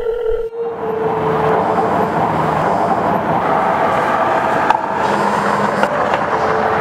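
Steady rush of outdoor traffic noise, like cars passing on a street, with a single sharp click a little past halfway. A held tone of film music fades out in the first couple of seconds and comes back near the end.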